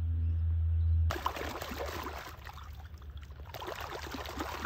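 Water splashing and sloshing as a plastic container is swished hard back and forth in shallow water, starting suddenly about a second in after a low steady rumble.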